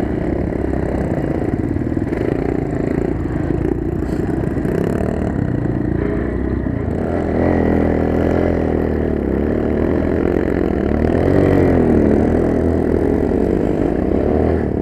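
Enduro motorcycle engine running under throttle, heard close up from the bike itself, as it rides through snow. From about halfway the engine note rises and falls several times as the throttle is worked.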